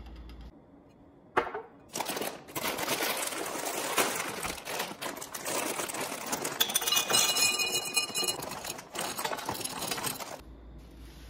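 Dry fusilli pasta poured into a tall glass jar, the pieces rattling and clinking against the glass in a dense stream that stops about ten seconds in. A single sharp knock comes about a second in.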